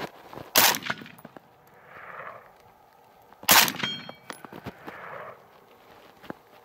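Two rifle shots from a KelTec RDB 5.56 bullpup, about three seconds apart, each a sharp crack. After the second comes a brief metallic ring: a hit on a steel target.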